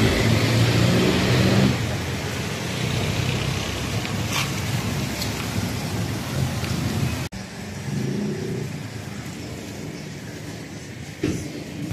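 City street traffic: motor vehicle engines running and passing with a steady hiss of traffic noise, one engine close and loud in the first couple of seconds. The sound drops out for an instant about seven seconds in.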